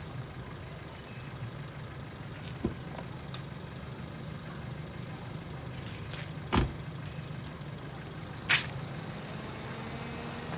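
Ford Fiesta's engine idling steadily, with three short sharp knocks a few seconds apart, the second and third the loudest.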